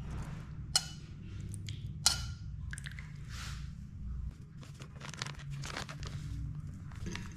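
Metal spoon clinking and scraping against a ceramic bowl while mixing spices, with two sharp ringing clinks, about a second in and about two seconds in, and lighter scrapes after. A low steady hum runs underneath.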